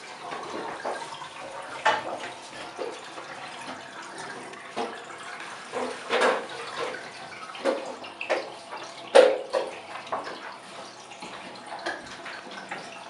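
Water splashing and dripping in a bathtub, a run of irregular splashes, the loudest about nine seconds in.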